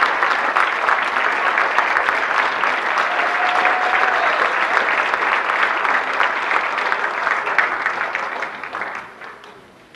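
Audience applauding, a dense, steady patter of many hands clapping that dies away near the end.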